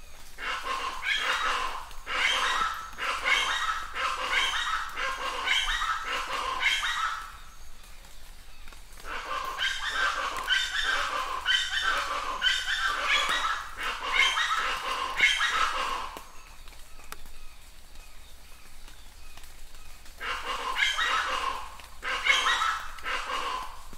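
An animal calling in quick repeated runs, about two or three calls a second, in three bouts with short pauses between them.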